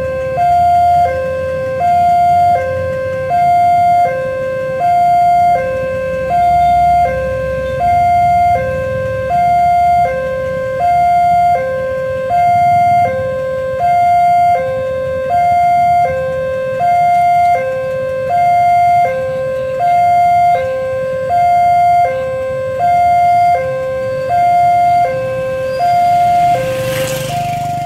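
Level crossing warning alarm sounding, a two-tone electronic signal alternating high and low about once a second without pause, warning of an approaching train. A motorcycle passes close by near the end.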